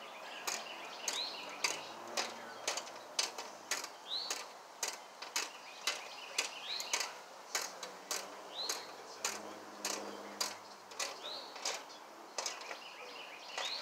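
Hand ratchet wrench clicking in quick irregular runs, about two to three clicks a second, as the bolts holding a new blade spindle housing to a Husqvarna zero-turn mower deck are run down tight.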